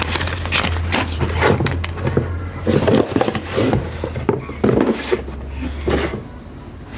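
Irregular knocks and clatter of things being handled, over a steady low hum that stops about six seconds in. A continuous high insect trill, like crickets, runs underneath.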